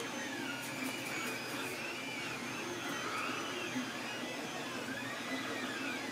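Faint whine of a 3D printer's stepper motors, its pitch gliding up and down in repeated arcs over a steady background hum.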